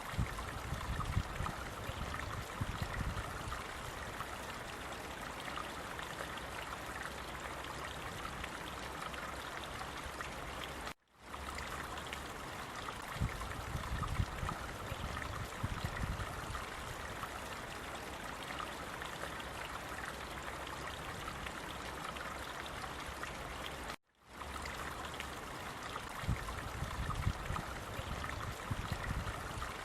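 Steady rushing of running water with occasional low rumbles. The sound cuts out for an instant twice, about 11 and 24 seconds in, and the same stretch repeats roughly every 13 seconds, as a looped recording does.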